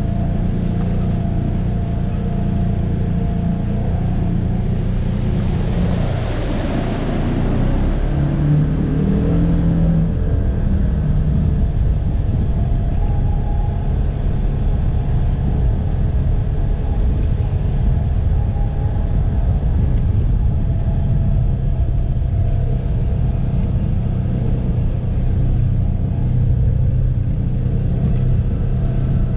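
Polaris Ranger 1000 side-by-side's twin-cylinder engine running steadily, with a brief rush of noise about six seconds in and the engine note shifting a couple of seconds later.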